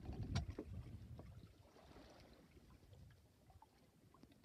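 Faint water washing against the hull of a small sailboat under sail, loudest at first and then fading, with a sharp knock about half a second in.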